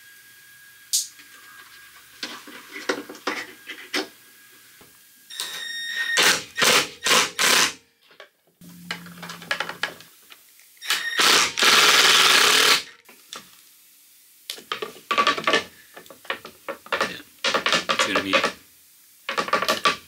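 Hands-on work on a Mazda Miata door: a run of clicks, knocks and rattles of parts and tools, a short squeak about five seconds in, a brief steady hum about nine seconds in, and a loud hiss lasting about two seconds around twelve seconds.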